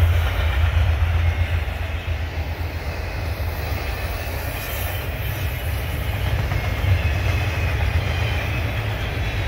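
Double-stack intermodal freight train of container-laden well cars rolling past, its wheels running steadily on the rails with a continuous low rumble.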